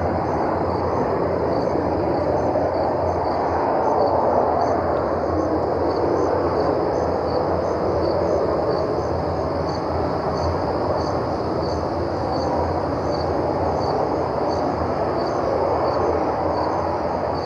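A loud, steady, deep roar from the night sky with no clear pitch. It swells a little a few seconds in and otherwise holds even. Crickets chirp at a slow, even rate, about one or two chirps a second.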